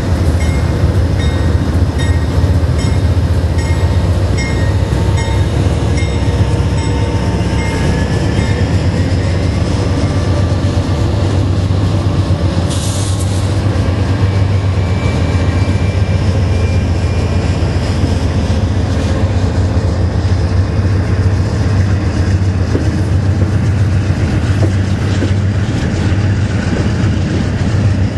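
Amtrak passenger train passing close by: the trailing GE Genesis diesel locomotive at the start, then the steady rumble of double-deck Superliner coaches' wheels on the rails. Thin whining tones sound over the rumble in the first eight seconds or so, and there is a brief hiss about halfway through.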